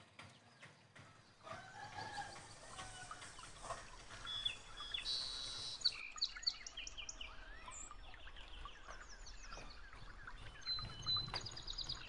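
Faint farmyard ambience: chickens clucking and small birds chirping in quick, repeated short calls.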